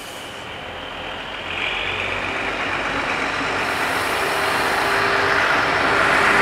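DB class 628 diesel multiple unit approaching and reaching the level crossing: engine and wheel-on-rail noise growing steadily louder.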